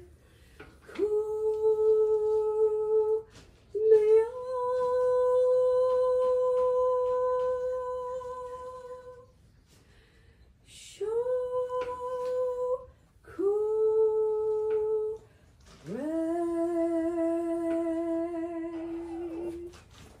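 A voice singing long, held single notes, five in turn with short pauses between them: each slides up into its pitch and is held steady for two to five seconds, and the last falls away at its end. It is slow wordless toning sung over a mare as part of a Reiki healing session.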